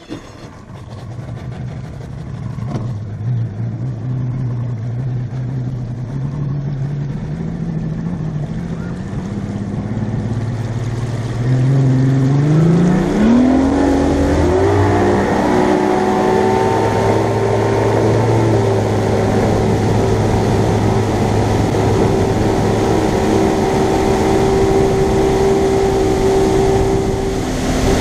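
Bass boat's Yamaha outboard motor running at low speed with its pitch slowly creeping up, then throttled up about halfway through so the pitch climbs quickly as the boat gets onto plane, and it then holds a steady high-speed run.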